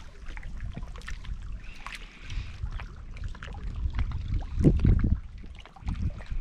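Water sloshing and trickling over an uneven low rumble, with scattered light knocks and a couple of louder low thumps about two-thirds of the way in.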